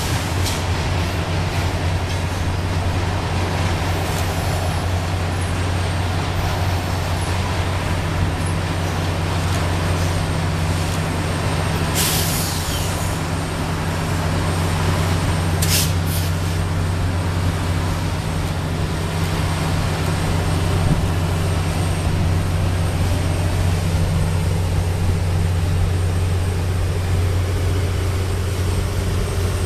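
NRE 3GS21B genset locomotive's diesel generator sets running as it leads a freight train slowly past, a steady low drone. Two short hisses of air cut in, one about 12 seconds in and a shorter one near 16 seconds.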